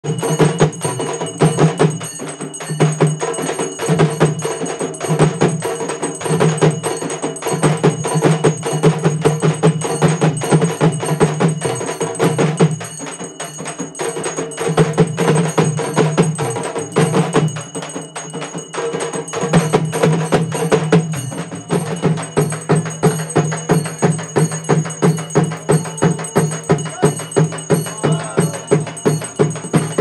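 Traditional percussion music: fast, dense drumming over a steady held tone, the beat settling into regular strokes, a little over two a second, in the last several seconds.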